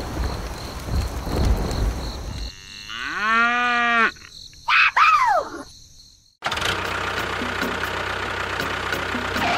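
A single cow moo about three seconds in, rising and then held for about a second, after a stretch of rumbling noise. A short falling tone follows, then a steady drone from about six and a half seconds on.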